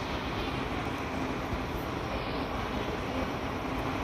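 Kashima Rinkai Railway diesel railcar idling while stopped, a steady engine hum with a constant low drone.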